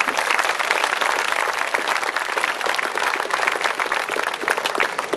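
Audience applauding: dense, steady clapping from many people, thinning a little near the end.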